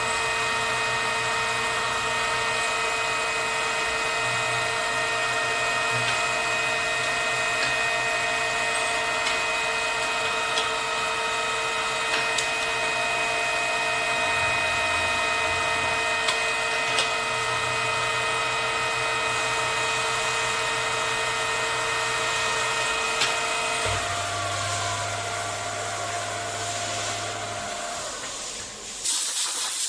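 Milling machine running with a steady, multi-toned whine and occasional small ticks. About 24 seconds in, part of the whine stops and the rest dies away a few seconds later. Near the end comes a brief loud hiss.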